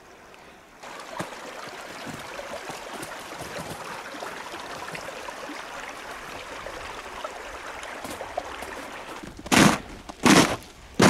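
Water rushing steadily through a beaver dam. Near the end come two loud crunching footsteps breaking through a crust of ice on the snow.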